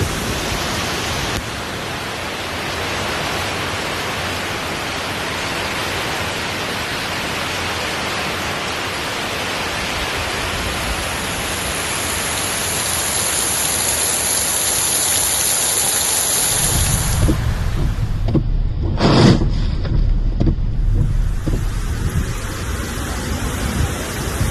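Steady hiss of heavy rain and water, giving way about two-thirds of the way through to gusty wind buffeting the microphone with a low rumble.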